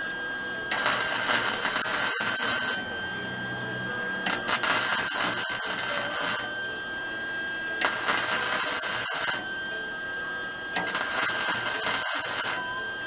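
MIG welder running four separate welds on steel frame tubing, each a loud crackling sizzle of about two seconds with short pauses between. A steady high tone runs underneath throughout.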